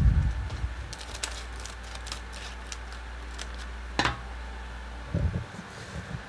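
A clear plastic bag being handled, giving scattered faint crinkles and clicks, with one louder sharp click about four seconds in and a few low knocks near the end as the phone is moved.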